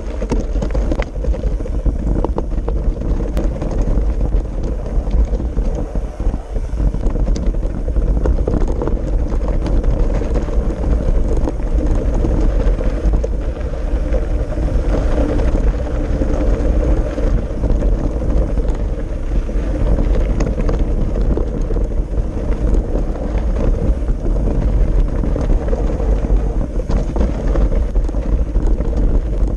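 Wind buffeting a handlebar-mounted GoPro as a mountain bike rolls over a rough stony gravel track, with the tyres crunching over loose stones and frequent clicks and rattles from the bike.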